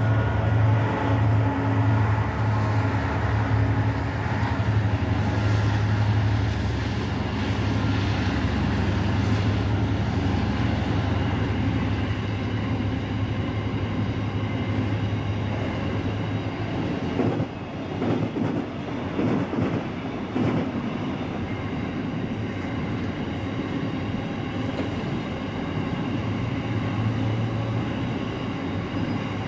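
A freight train of coal hopper wagons rolling past. A steady low drone fills the first half, then a quick run of wheel clicks over rail joints comes just past the halfway mark, and the wagons keep rolling to the end.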